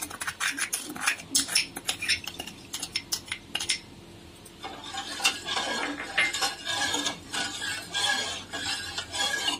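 A metal spoon clinks and taps against a glass bowl as the last of the sugar is knocked into a pot. From about five seconds in, the spoon stirs the mango custard mixture in a metal pot, scraping and clattering against its sides and bottom.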